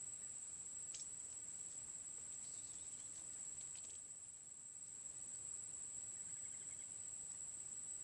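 Steady high-pitched drone of insects in the riverside vegetation, one unbroken high note, with a few faint clicks and a brief twittering chirp about three quarters of the way through.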